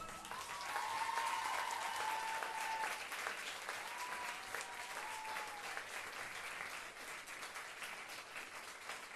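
Theatre audience applauding at the end of a dance number, the clapping slowly fading. A few long, high whoops rise over it in the first six seconds.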